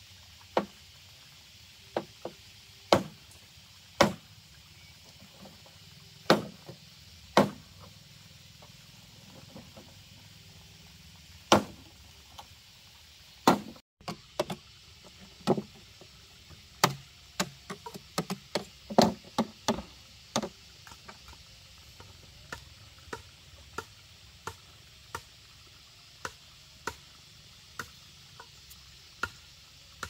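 Chopping with a blade, sharp single strikes: a few heavy chops spaced out at first, a quick flurry around the middle, then lighter chops at an even pace of somewhat more than one a second toward the end.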